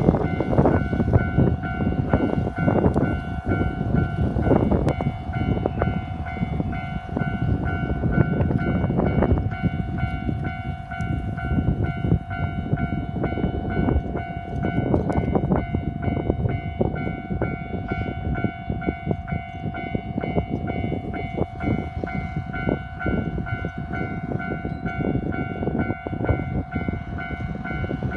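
Japanese level-crossing warning bell ringing steadily over heavy wind buffeting on the microphone.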